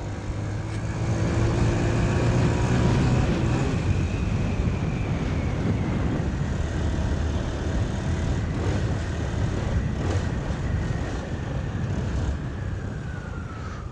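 Motorcycle with a modified, louder aftermarket exhaust running steadily as it is ridden, a constant low engine drone that dips slightly in pitch near the end.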